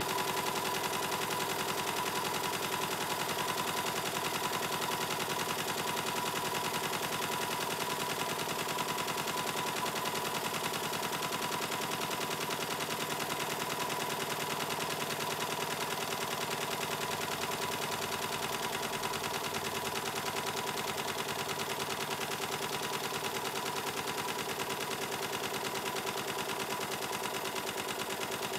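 Gas-fired live-steam model traction engine running at a very high speed, its exhaust beats coming so fast they blur into an even chatter. A steady high tone runs through it.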